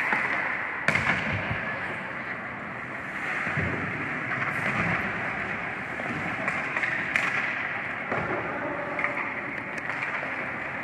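Ice hockey skate blades scraping and carving on the ice as a steady hiss, with a few sharp clacks of sticks and puck, the clearest about a second in.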